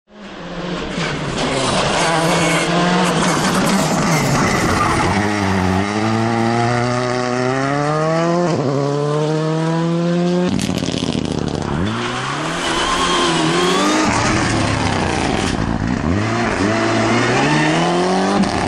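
Racing car engines running at high revs on a circuit. One engine climbs steadily in pitch for about five seconds, changes abruptly about ten seconds in, then its revs fall and rise again several times.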